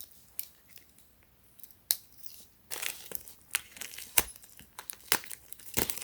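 Packaging being torn open and handled: scattered short rustles, crinkles and sharp clicks, sparse for the first couple of seconds and busier from about the middle on.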